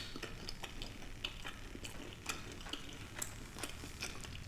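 Close-miked chewing and eating: small irregular mouth clicks and smacks, several a second.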